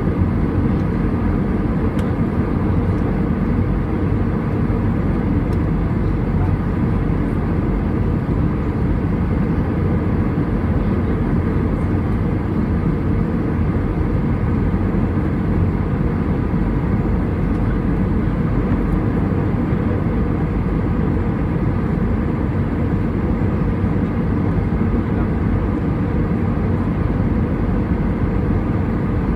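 Steady cabin noise inside an Airbus A320 during descent: the drone of its jet engines and the rush of air over the fuselage, even and unbroken, heard from a window seat over the wing, with a faint steady whine above the low roar.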